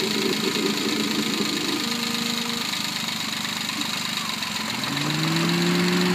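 Suzuki Alto Works (HB21S) engine idling, its 660 cc three-cylinder turbo carrying a droning hum out of the open-type air cleaner. The hum fades away about two seconds in and comes back about five seconds in, rising a little in pitch and then holding steady. The owner traces the drone to the VSV (vacuum switching valve), since its volume changes as the valve opening is adjusted.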